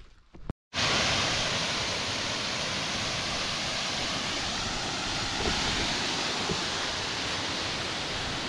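A steady, even rushing noise that starts abruptly just under a second in, after a brief moment of silence.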